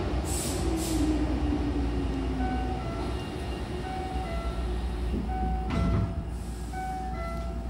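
Hankyu commuter train's sliding passenger doors closing. A repeating descending two-note door chime plays while the doors slide shut, and they meet with a thump about six seconds in. Two short hisses of air come just after the start, under a low falling hum.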